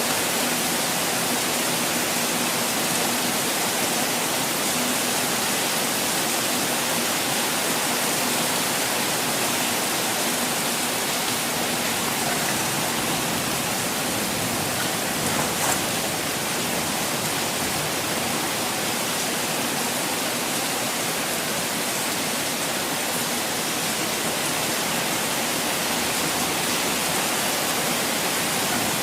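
Steady, even rush of continuously falling water, with one brief crack about halfway through.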